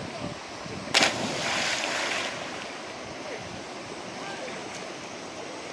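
A child jumping from a high boulder into a deep river pool: one loud splash about a second in, with spray falling back for about a second and a half, over the steady sound of flowing river water.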